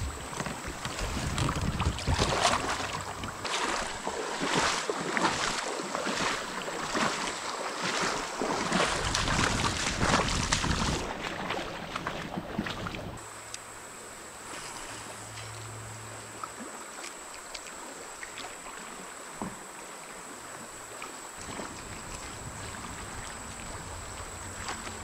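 Rhythmic splashing of shallow river water, about one splash every two-thirds of a second, as a kayak is moved upriver through a riffle. About eleven seconds in the splashing stops, leaving a softer steady rush of water.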